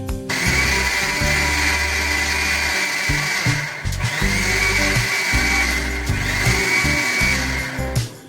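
A small electric motor appliance running with a steady whine and a grinding noise. It runs in two stretches, with a short break a little before halfway. Background music plays underneath.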